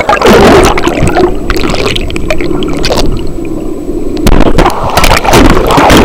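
Churning rapids water on a waterproof camera as it goes under: loud turbulent gurgling and rushing that starts suddenly, eases off, then surges again about four seconds in.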